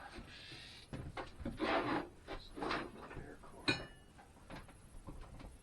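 Irregular handling noises, scraping and rustling, with one sharp click a little past the middle, as the miter saw's power cord is dealt with and the saw is plugged in.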